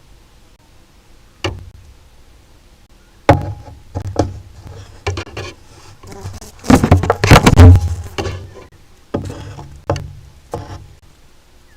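A griffon vulture's beak knocking and pulling at the nest camera close to its microphone: separate knocks and thumps, with a dense run of loud clattering a little past the middle.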